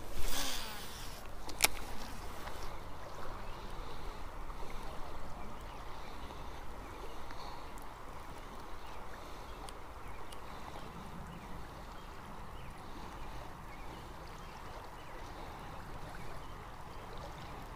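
Steady rushing of the river's current along the bank. At the start there is a brief loud whoosh from the cast, with a sharp click about a second and a half in.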